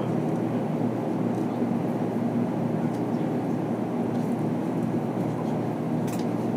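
A 500 series Shinkansen train pulling slowly out of the station, giving a steady low hum and rumble with a few held low tones. A few light clicks come near the end.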